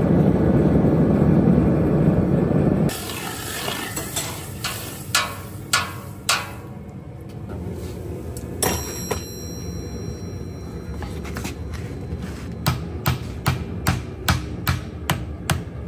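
A forge runs loudly for about three seconds, then scattered clanks of steel tools follow. Near the end a hand hammer strikes a glowing steel cylinder held in tongs on an anvil, about eight sharp ringing blows at two or three a second.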